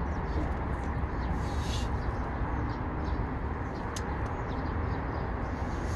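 Steady low outdoor rumble with a few faint, brief high chirps or ticks, one near the middle.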